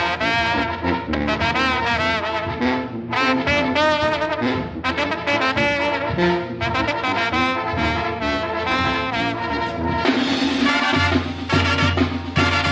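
Brass band music with trumpets and trombones carrying the melody over a steady beat. About ten seconds in, a heavier bass and drum beat comes in.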